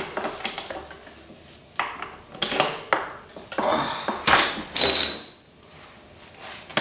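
Metal parts clinking and scraping as a front wheel and axle are fitted into a pit bike's front fork: a series of separate knocks, the loudest about four to five seconds in with a brief metallic ring.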